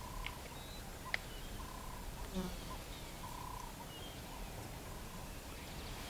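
Faint savanna bush ambience: short, even calls at one pitch repeating every second or so, a few brief higher chirps, and a single sharp click about a second in.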